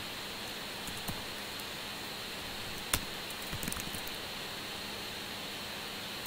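Steady background hiss with a few scattered clicks of typing on a computer keyboard, one sharper click about three seconds in.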